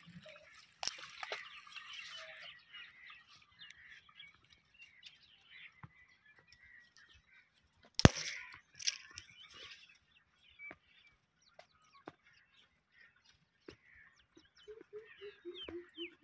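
Scattered rustling and small clicks, with one sharp crack about eight seconds in. Near the end, a rapid series of short, low animal calls, about three a second.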